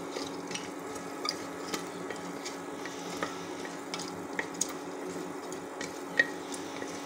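Cumin seeds and whole spices frying in hot ghee in a pressure cooker base, sizzling steadily while a wooden spatula stirs and scrapes them. Scattered small crackles and pops, with a sharper pop about six seconds in.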